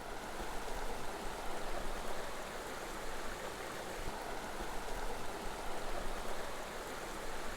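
Mountain creek rushing and tumbling over boulders: a steady, even water noise.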